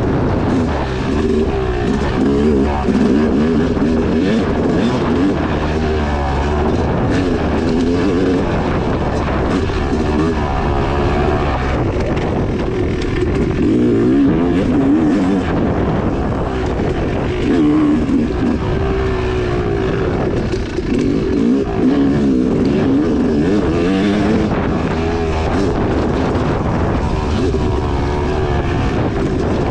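2016 Yamaha YZ250X single-cylinder two-stroke dirt bike engine, revving up and down constantly as it is ridden hard over a rough off-road course, with frequent short knocks and rattles.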